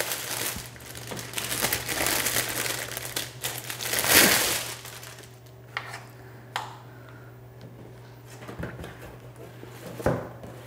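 Packaging crinkling and rustling as it is handled, loudest about four seconds in, followed by a few light clicks and knocks.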